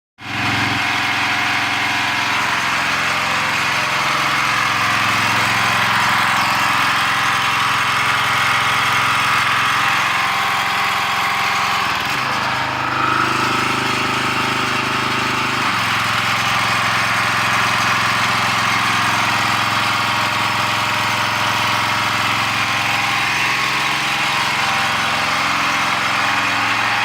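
Loud gasoline engine of a pressure washer running steadily after repair, running pretty good. Its engine speed shifts for a few seconds about halfway through.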